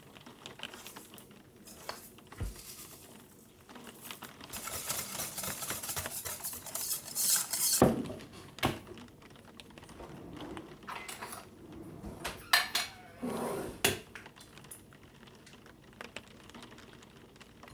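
Dishes and cutlery clinking and knocking during cooking, with a few seconds of rustling noise in the first half. The loudest knock comes about eight seconds in.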